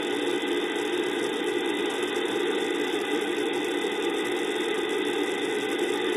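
Steady, loud FM static hiss from a software-defined radio in narrowband FM on the ISS's 145.800 MHz downlink with the squelch off. The station has stopped transmitting after "over", so with no carrier the receiver puts out plain noise.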